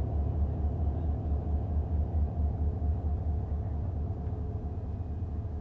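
Diesel locomotive engine running with a low, steady rumble as the train rolls slowly past, easing slightly as the locomotive moves away.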